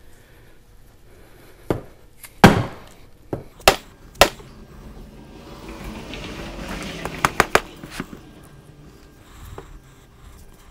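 A dead-blow hammer striking the aluminium snout of an LT4 supercharger: about five hard knocks in the first half, the second one loudest, then handling noise with three quick light knocks. The hammer is being used to drive the snout off the supercharger body, but it is stuck fast and is not budging.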